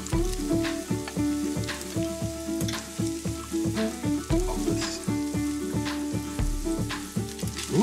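Rice frying with a steady sizzle in a hot pan, stirred and scraped with a utensil in quick repeated strokes.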